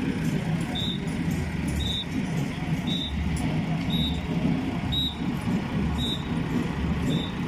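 Farm tractor engine running as it tows a parade float, with a short high-pitched beep repeating about once a second.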